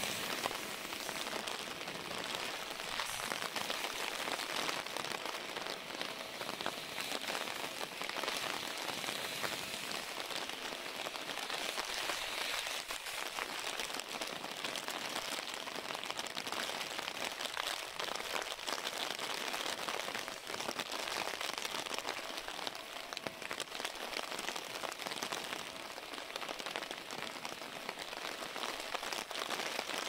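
Steady heavy rain from an approaching typhoon, an even hiss picked up by a smartphone's built-in microphone.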